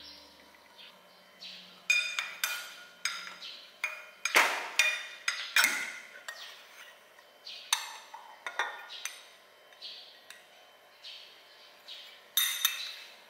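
Metal spoon clinking and scraping against porcelain bowls and a plate: an irregular run of sharp clinks, each with a short ring, the loudest about four to six seconds in.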